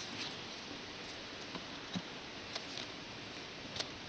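Faint steady hiss with a few soft taps and clicks from trading cards being handled.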